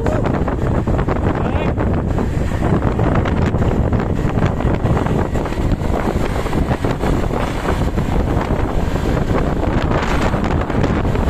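Steady, loud wind buffeting the microphone over a rumble of moving traffic.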